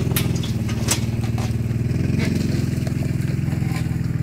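Engine running at a steady speed, with scattered clicks and rattles over it.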